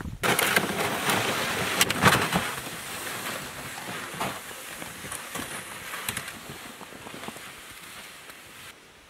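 Boots crunching through deep snow with a plastic sled scraping and hissing along behind, loud at first and fading as they move away.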